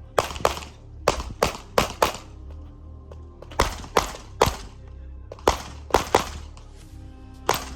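About a dozen handgun shots fired in quick pairs and short strings, over rap music with a steady bass line.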